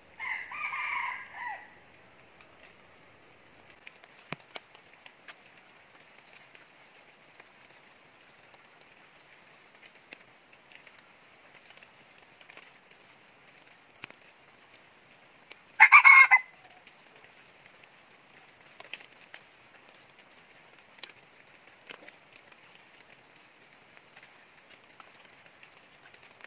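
Red junglefowl rooster crowing twice: once at the start, and again, louder and shorter, about sixteen seconds in, over a faint steady high hiss.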